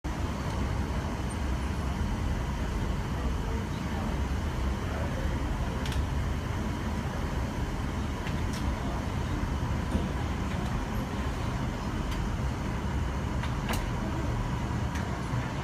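Indoor skydiving wind tunnel running: a steady rush of air and fan noise, heard through the glass wall of the flight chamber, with a few faint clicks.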